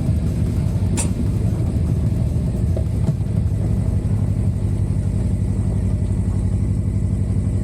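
Suzuki V-Strom 250's parallel-twin engine running steadily as the motorcycle rides along.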